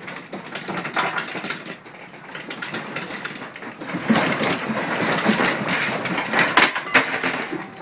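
Household objects and furniture rattling and clattering as a room shakes in an earthquake, a dense jumble of small knocks that grows louder about halfway through.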